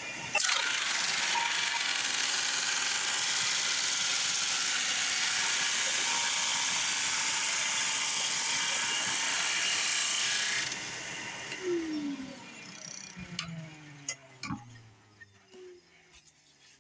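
Drum sander sanding a board of white ash, with a shop vac drawing off the dust: a loud steady hiss that starts suddenly. After about ten seconds it cuts off, and the motors wind down with falling pitch, followed by a few clicks and knocks.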